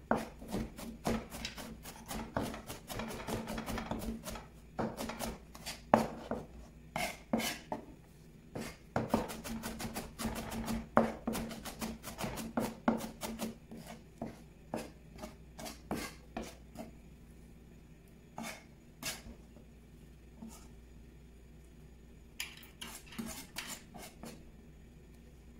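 Chef's knife chopping onion finely on a plastic cutting board: a fast, dense run of knife taps against the board that thins out to a few scattered taps in the last third.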